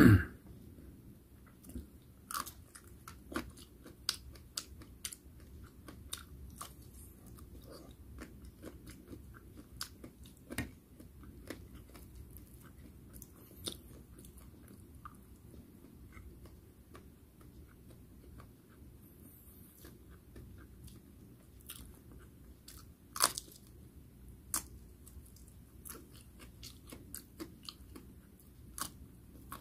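Close-up mouth sounds of a person chewing and biting fried food, with many small crisp crunches and clicks. A loud thump comes right at the start and a sharp crunch about 23 seconds in.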